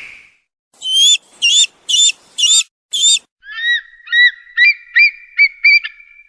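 Eagle calling: five high, sharply hooked whistled notes, then a quicker run of about seven lower piping notes.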